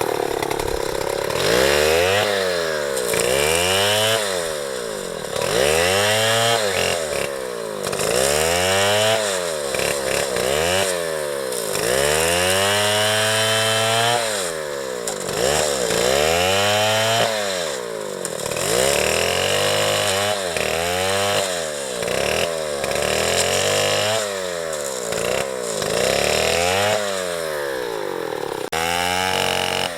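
Small two-stroke chainsaw cutting into a tree at full throttle. Its engine pitch sags and recovers over and over, about every one and a half seconds, as the chain bogs down in the wood under cutting load and then frees.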